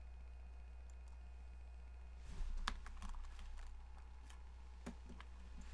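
Faint computer keys clicking: a quick run of several clicks a little over two seconds in and a few scattered clicks near the end, over a steady low hum.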